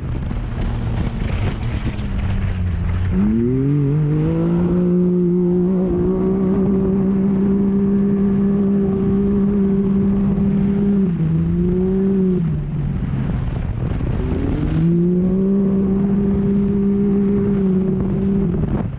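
Off-road race vehicle's engine under load at speed. It climbs in pitch about three seconds in and holds a steady high note for several seconds, then eases off briefly twice around eleven to thirteen seconds in. It climbs and holds again until near the end, over a constant rough rumble of wind and terrain.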